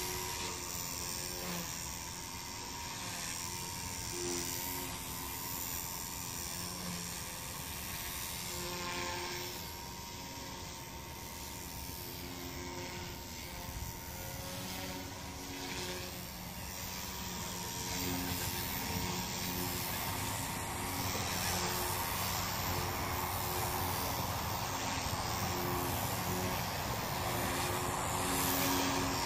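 Blade 150S radio-controlled helicopter in flight: the whine of its electric motor and rotors, changing pitch up and down as it manoeuvres, and louder in the second half.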